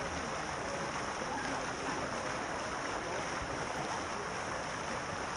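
Outdoor swimming pool ambience: a steady wash of water noise with faint distant voices.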